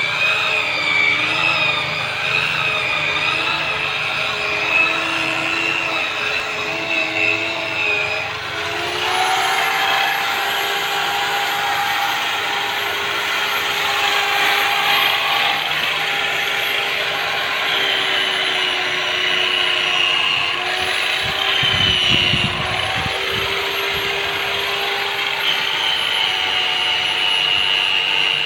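Electric rotary polisher motor whining steadily as it buffs wax onto a boat hull, its pitch wavering, with a shift to a different pitch about eight seconds in.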